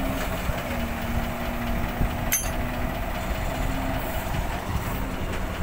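Crane truck's engine running steadily at a low hum, with one sharp click about two seconds in.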